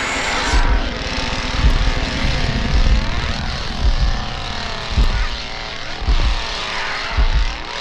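A chainsaw engine revving, its pitch swelling and falling again and again, with heavy low booms about once a second under it.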